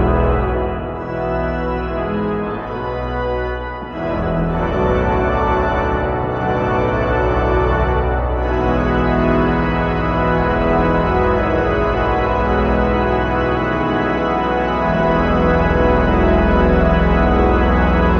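Three-manual organ played in sustained full chords over a deep bass line; after a brief lull about four seconds in, the sound fills out and grows louder through the second half.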